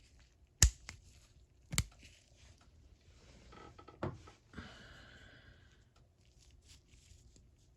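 Small steel parts of a vintage Metcoid ratchet being handled during disassembly: two sharp metal clicks, then a few seconds of metal scraping and sliding with a couple of knocks, then faint small ticks.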